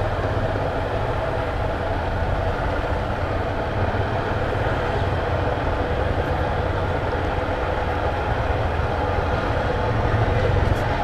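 Motorcycle engine running at a steady cruise, with steady wind rush on a helmet-mounted camera microphone.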